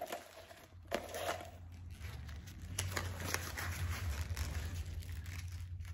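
Sheets of paper wrapping from a pipe-tobacco tin crinkling and rustling as they are pulled out and handled, in short irregular crackles. A low steady hum sits underneath and grows stronger after about two seconds.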